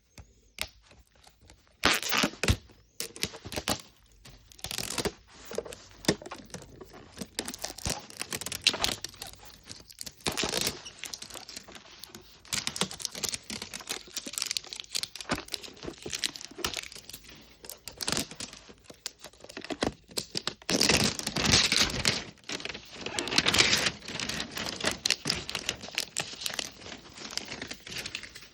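Paper wrapping being torn and crumpled as it is pulled off a miniature toy fridge: irregular crinkling and ripping, loudest in a longer stretch near the end.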